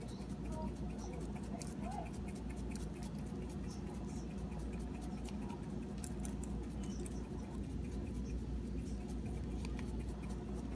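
Dried Italian seasoning shaken from its container onto a pizza: rapid, irregular light ticks and taps over a steady low hum.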